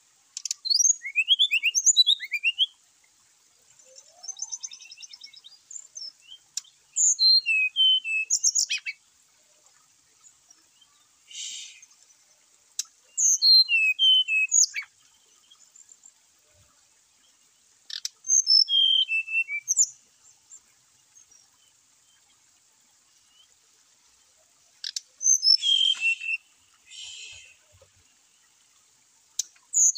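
Brown-chested jungle flycatcher singing. It gives phrases of quick, high whistled notes that slide up and down, each phrase one to three seconds long, repeated about eight times with short pauses between.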